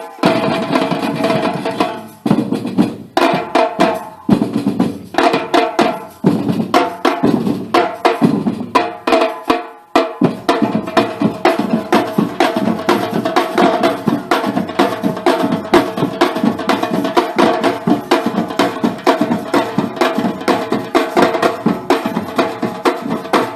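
Music driven by drums: fast, even percussion hits over a sustained melody, with a few brief breaks in the first ten seconds before the beat runs on steadily.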